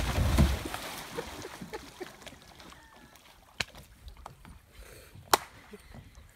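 A plastic kayak capsizing at the riverbank as a man tips over into the shallow water: a loud splash and thrash in the first half-second, followed by quieter rustling and a few sharp knocks.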